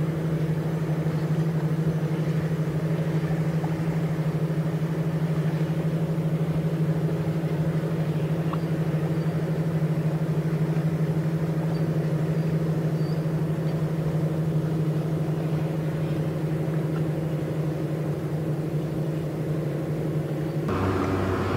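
A boat's engine running at a steady speed, a deep even drone. Near the end the drone stops abruptly and a different engine sound takes over.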